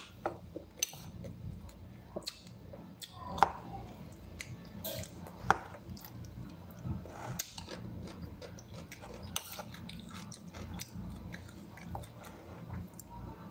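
Close-up chewing and crunching of raw cucumber and tomato slices, with irregular sharp clicks now and then.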